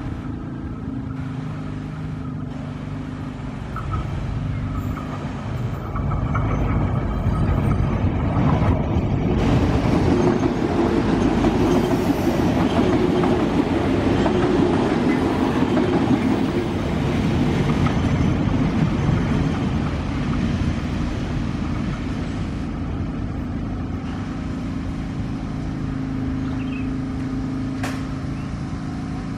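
Diesel multiple-unit train running past close by on the rails. A steady engine hum builds into a loud rush of wheel-on-rail noise that peaks around the middle and fades, then a steady engine hum returns near the end.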